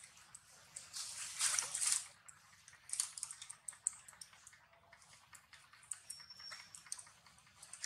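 Close soft crackling clicks and rustling from macaques eating seeds and handling a baby on a mossy rock, with a louder rustle about a second in. A faint, thin high whistle comes near the end.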